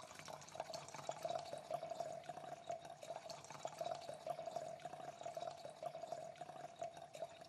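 Faint dripping, crackling liquid sound: many small irregular clicks over a steady faint tone, cutting off at the end.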